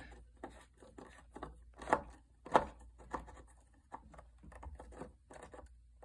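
A hand screwdriver working a tight screw out of the plastic brush-roll housing of a Hoover WindTunnel vacuum: a run of small clicks and scrapes, with two sharper clicks about two seconds in and half a second later.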